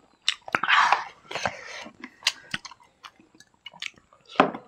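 Close-miked chewing and mouth smacking of people eating rice and chicken with their hands, with sharp wet clicks from the mouth.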